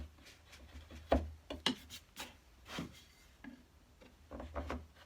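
Wood chisel pushed by hand, without a mallet, paring into pine up to a knife line: irregular short scraping cuts with a few sharp clicks, several coming close together near the end.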